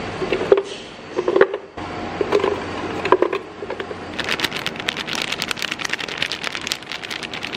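Chunks of frozen papaya dropped by hand into a plastic blender jar, several dull knocks and clicks. From about four seconds in, a plastic spice packet crinkles steadily as ground turmeric is shaken out of it.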